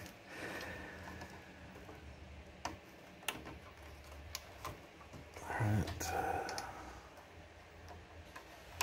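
Sharp plastic clicks and rattles of modular power-supply cable connectors being handled and pushed into the sockets of a PC power supply, with a louder rustle of the cables a little after the middle, over a low steady hum.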